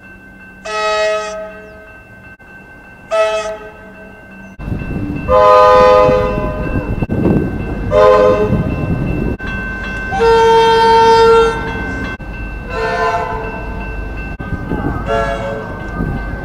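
Comeng electric train horn sounding a series of about seven short blasts. From about four and a half seconds in, a heavy low rumble of the running train lies under them.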